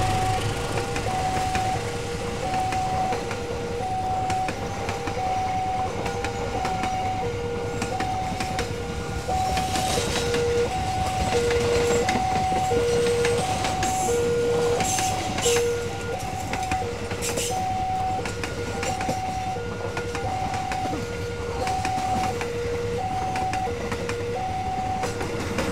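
Level-crossing warning alarm sounding a steady electronic two-tone chime, low and high tones alternating about once a second, over the rolling rumble and clatter of a long train of passenger coaches passing close by.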